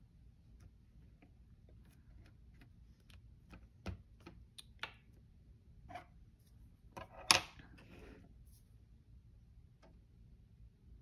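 Small taps and clicks of hands handling a spiral planner and pressing a sticker onto its paper page, with one sharper click and a brief rustle a little over seven seconds in.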